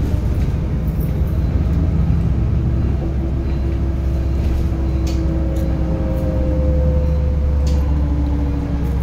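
City bus in motion, heard from inside: a steady low rumble of engine and road noise, with a faint whine that drifts lower in pitch midway and a few light rattles.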